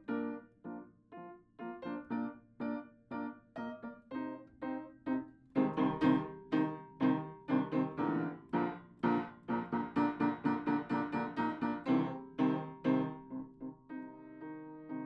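Solo piano playing a steady string of single notes, which grows louder and busier about five seconds in, then settles into held chords near the end.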